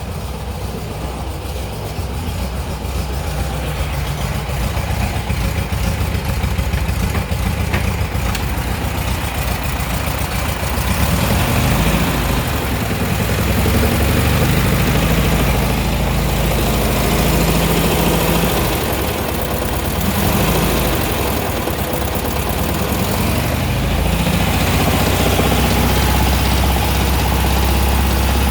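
1959 Volkswagen Beetle's air-cooled flat-four engine running steadily, growing louder and fuller about eleven seconds in.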